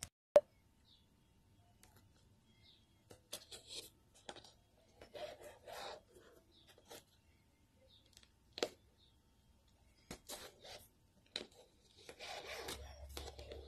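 Hand-sewing a fabric cover: faint, scattered rubbing and scraping as thread is drawn through the cloth and the fabric is handled, with a longer stretch of rustling near the end. A sharp click about half a second in is the loudest sound, and a few softer single clicks follow later.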